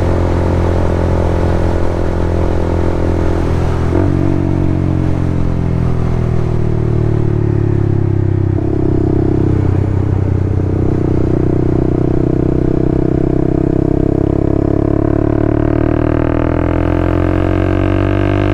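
Motorcycle engine running while riding, a steady drone whose pitch drifts up and down with the throttle, with a change in engine note about eight seconds in.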